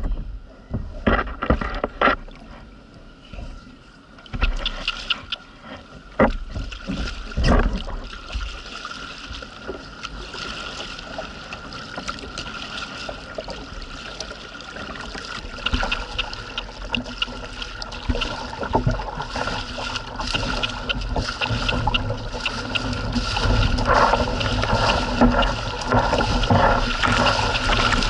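Double-bladed paddle dipping and splashing as a sit-on-top fishing kayak is paddled on choppy sea, with separate strokes early on. Water sloshes around the hull and grows louder toward the end as the kayak meets rougher water.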